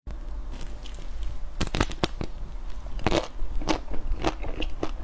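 Crisp-coated ice cream bar cracking and crunching as it is bitten and chewed: a run of sharp crackles, with louder cracks around one and a half to two seconds in and again from about three seconds on.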